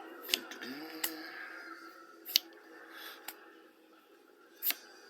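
Pokémon trading cards being handled and flicked through: five sharp card snaps, spread across the few seconds, with a soft rustle between them.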